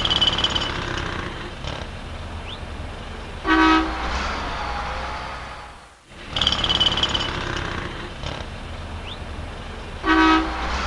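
City street traffic ambience: a steady low rumble of passing vehicles, with a car horn honking briefly about three and a half seconds in and again near the end. The same stretch of street sound dips away and restarts about six seconds in, so it plays twice.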